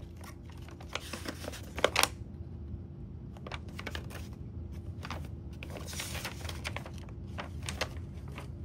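Paper rustling and crinkling in irregular bursts as a folded paper manual is lifted from a cardboard box and unfolded, with a sharp crackle about two seconds in.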